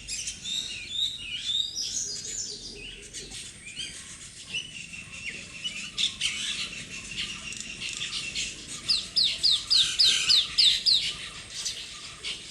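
Parrots chirping and calling continuously, with a quick run of sharp falling notes, about four a second, around nine seconds in.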